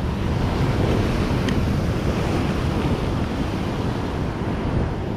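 Big sea waves breaking and churning over rocks: a loud, steady wash of surf, with wind rumbling on the microphone.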